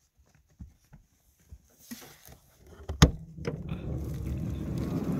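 Minivan door being opened from inside: a few light knocks as the handle is reached for, a sharp latch click about three seconds in, then a steady low rumble as the door slides open.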